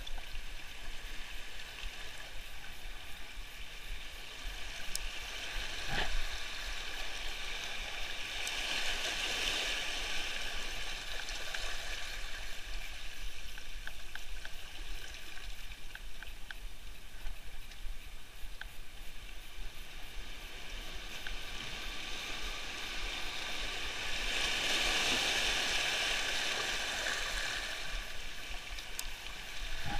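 Sea waves washing in over a shallow shore and draining back, swelling up about ten seconds in and again near the end, with one sharp knock about six seconds in.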